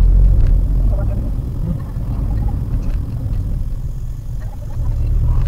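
Steady low rumble of a Maruti Suzuki WagonR driving, its engine and road noise heard from inside the cabin.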